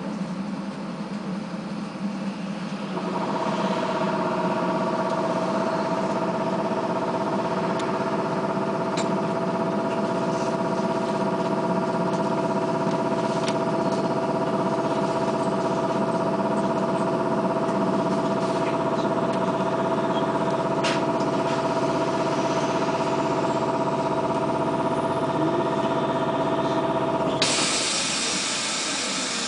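Bogdan trolleybus's on-board air compressor running steadily, heard from inside the cabin as a hum of several steady tones while the vehicle stands. Near the end the hum cuts off abruptly and a steady hiss of released air begins.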